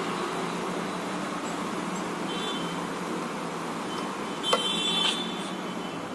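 Two sharp, light metallic clicks with a brief high ring, about four and a half and five seconds in, from a screwdriver and small screws while the printer's USB port board is unscrewed. Under them runs a steady background hiss and hum.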